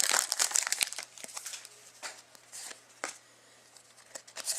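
Hockey trading cards being handled and straightened in the hands, the card edges rustling and clicking against one another. There is a dense flurry in the first second, then scattered lighter rustles, and another quick flurry near the end.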